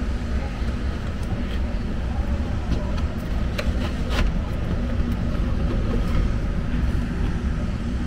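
Air handler blower running with a steady low rumble of moving air. A few sharp clatters about three and a half to four seconds in, as a 20x25x5 media filter is handled and slid into its filter cabinet.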